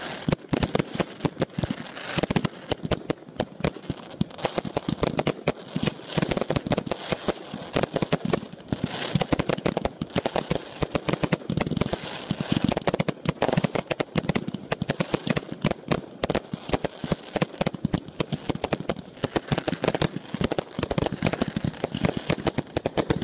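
Aerial fireworks bursting overhead: a dense, unbroken run of sharp bangs and crackles, many each second.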